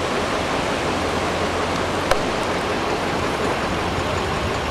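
Steady rush of a rocky mountain creek flowing over and between boulders, with a single sharp click about two seconds in.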